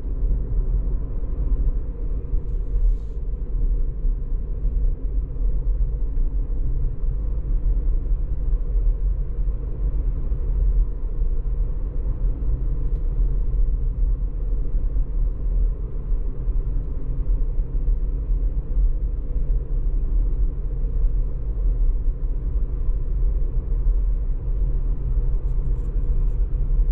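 Steady low rumble of tyre and road noise inside the cabin of a Tesla Model 3, an electric car, driving at about 50 to 65 km/h.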